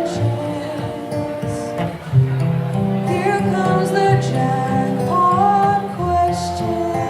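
Music: acoustic guitar playing a slow song, with a melody line moving over the chords.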